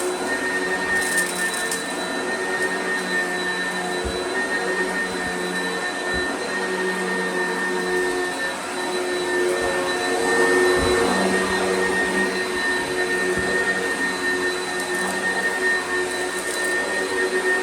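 Oreck XL upright vacuum cleaner running steadily over carpet with a constant motor whine, swelling a little louder about two-thirds of the way through.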